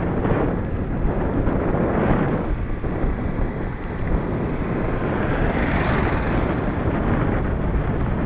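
Wind buffeting the camera microphone during a bicycle ride: a loud, steady rush of noise that swells and eases.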